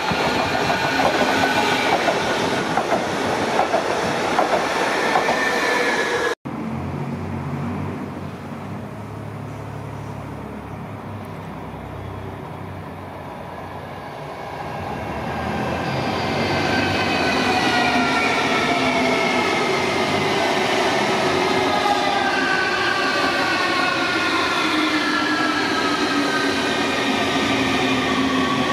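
Electric multiple units on mainline track: first a eurobahn Stadler FLIRT running by loudly, then, after a break about six seconds in, an RRX Siemens Desiro HC double-deck unit approaching and passing close. From about 15 s its sound swells, and its drive whine holds several tones that slide slowly downward in pitch.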